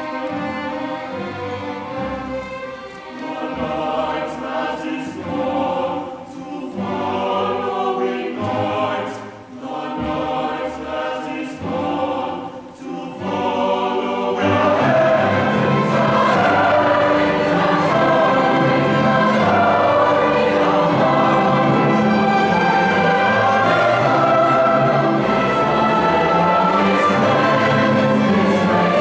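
Massed choir singing with a symphony orchestra. The first half comes in short phrases with brief dips, then about halfway through the full choir and orchestra swell in louder and hold that level.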